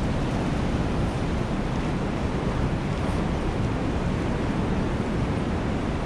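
Blizzard wind blowing steadily and buffeting the microphone with a low rumble.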